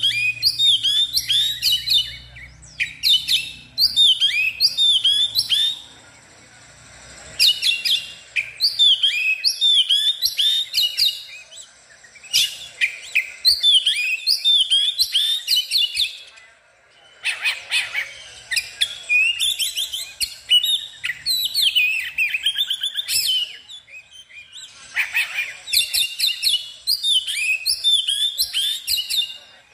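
Oriental magpie-robin singing loudly in full, excited song: long phrases of rapid, varied whistles and chirps broken by short pauses.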